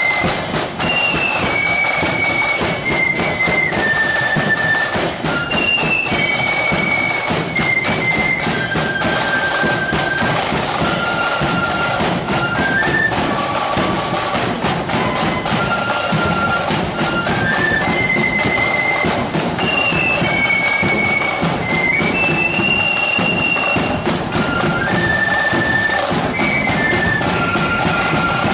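Marching flute band playing a parade tune: the flutes carry a single high melody over drums beating time. The tune's opening phrase comes round again about two-thirds of the way through, and the playing stops at the very end.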